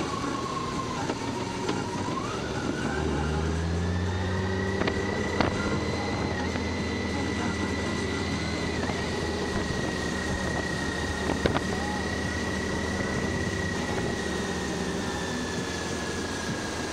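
Motorcycle engine and wind noise at motorway speed: the engine note rises about two to three seconds in as the bike speeds up, then holds steady with a high whine over it. Two sharp clicks stand out, one about five seconds in and one near the middle.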